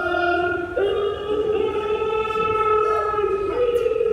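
A long drawn-out wailing voice, held on steady pitches that shift about a second in and again near the end.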